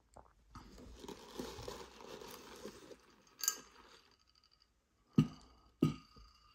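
Crumpled tissue-paper packing rustling and crinkling as a large glass vacuum tube is lifted out of its box. A sharp click follows, then two short knocks near the end, the loudest sounds here.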